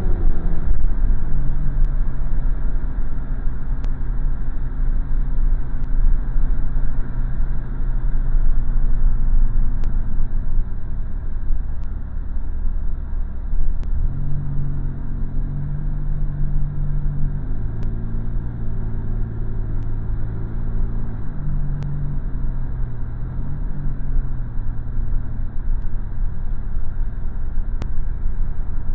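Car interior noise while driving: engine and road noise as a steady low rumble. A droning tone in it shifts pitch a few times in the second half.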